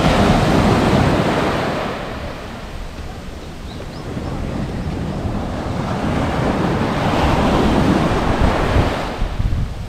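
Small wind-driven waves breaking and washing up a sandy beach, swelling twice about six seconds apart, with wind buffeting the microphone.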